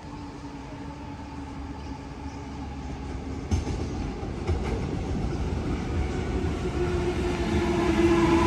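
Electric passenger train approaching, its steady motor hum growing louder throughout, with two sharp wheel clacks about three and a half and four and a half seconds in.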